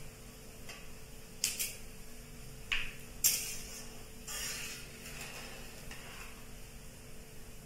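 Long metal spatula scraping and clinking against a metal kadhai while stirring whole spices frying in hot oil: several separate, sharp strokes.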